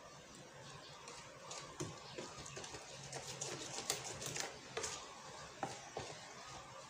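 A hand mixing glutinous rice flour in a plastic tub: irregular soft clicks, taps and rustles of fingers and flour against the plastic.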